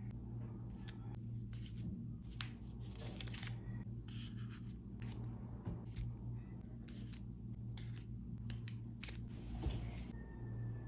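Paper cupcake liners rustling and crinkling in short, irregular bursts as they are handled, over a low steady hum.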